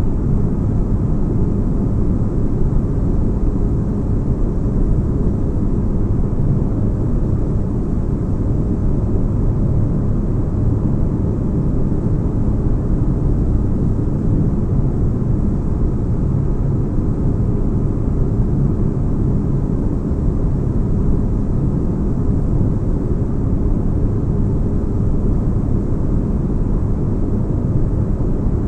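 Spaceship-cabin ambience: a steady deep-bass rumble of white noise, even and unchanging throughout.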